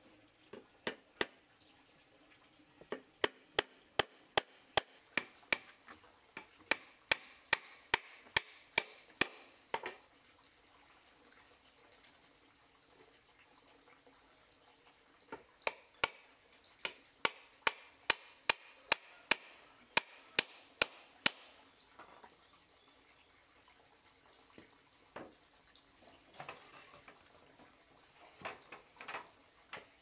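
A rapid run of sharp blows on wood, about two or three a second, in two bursts of several seconds each with a pause between, then a few lighter knocks near the end.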